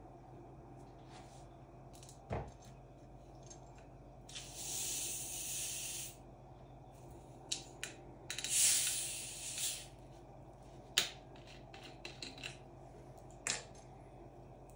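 Carbonated lemon-lime soda in a 1.5-litre plastic bottle hissing as the screw cap is loosened: gas escapes in two hisses, one about four seconds in and a louder one about eight and a half seconds in. A few sharp clicks of the bottle and cap being handled come between them.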